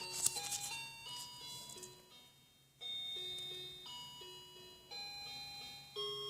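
Simple electronic melody of bell-like tones played one note at a time, stepping up and down in pitch, with a short pause midway.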